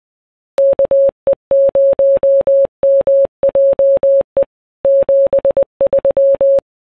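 Morse code sent as a clean, steady mid-pitched tone, keyed on and off in short and long beeps for about six seconds.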